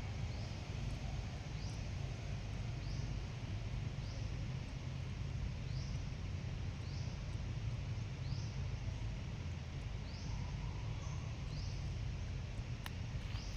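A bird chirping, a short high rising note repeated about once a second, over a steady low rumble.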